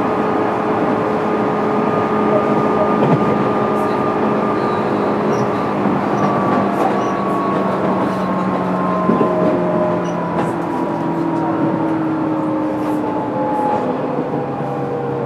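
Running noise heard inside the motor car of a JR East 205 series electric train: a steady rumble of wheels on rail under the whine of the traction motors and gears. The whine slides slowly lower in pitch as the train loses speed.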